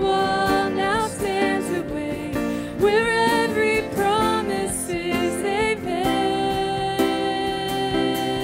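Live worship song: a man and a woman singing, backed by acoustic guitar, djembe and piano.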